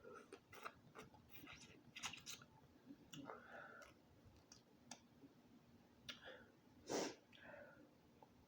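Close-up eating sounds from seafood boil and fufu: soft chewing, lip smacks and scattered small clicks, with one louder, brief smack about seven seconds in.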